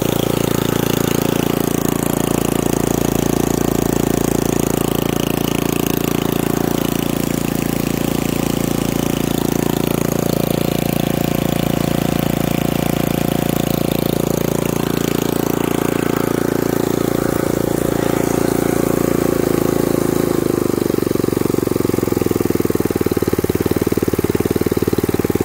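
5 hp Briggs & Stratton single-cylinder four-stroke engine on a 1979 Mountfield M1 Monarch rotavator, running steadily on its first run after more than twenty years in storage. About twenty seconds in the engine note drops lower and the single firing beats become distinct as the throttle is eased back.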